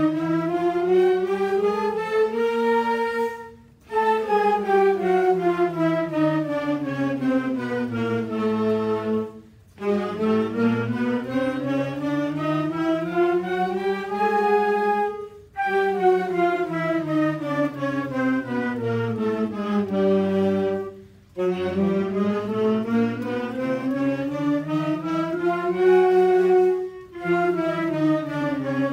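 School wind band, flutes among the players, playing a long-tone exercise together: each phrase climbs stepwise and then steps back down over about five seconds, with a short break for breath between phrases.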